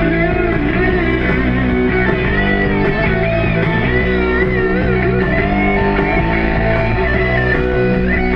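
Music with a prominent guitar, its melody bending in pitch over a steady low accompaniment.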